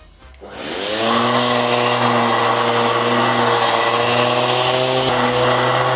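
Bosch random orbital sander with a 120-grit disc, starting up and sanding a wooden board, together with the dust extractor on its hose, which switches on with the sander. It rises in pitch as it spins up about half a second in, runs steadily, then switches off just before the end.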